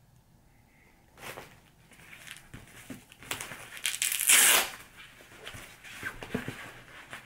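Handling a new boxing glove: scattered rustling and crinkling, with a loud tearing rip about four seconds in.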